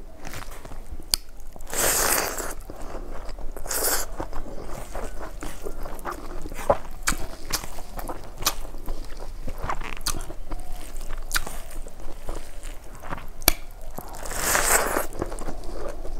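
Close-miked chewing of a handful of rice and cooked leafy greens eaten by hand, full of wet mouth clicks and smacks. A few louder noisy bursts come about two and four seconds in and again near the end.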